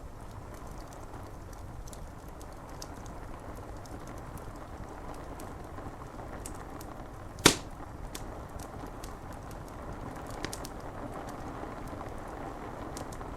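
Wood fire crackling with scattered small pops over the steady hiss of rain on window glass; about halfway through one log gives a single loud, sharp pop.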